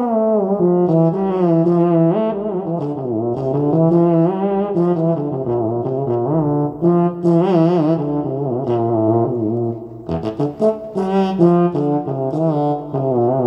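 Korg Nautilus synthesizer playing a brass-like patch: a melodic line with vibrato and pitch bends over a lower moving part, with a short break about ten seconds in.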